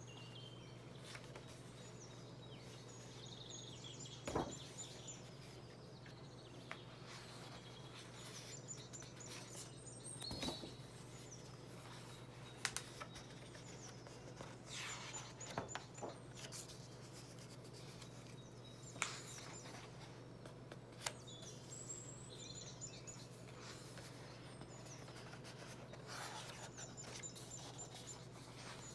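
Heavy pages of an oversized art book being slowly turned and smoothed by hand: occasional soft paper rustles and light knocks, heard a few times over a steady low hum. A songbird chirps in short phrases every few seconds in the background.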